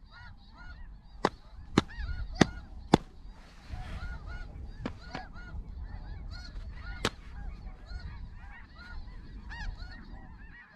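A flock of snow geese calling, many overlapping high-pitched honks all through. Four sharp clicks come within the first three seconds and one more about seven seconds in.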